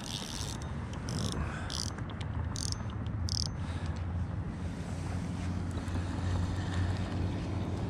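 Spinning reel being cranked to retrieve the line, heard as a few short, high, scratchy sounds in the first three and a half seconds, over a steady low rumble of wind on the microphone.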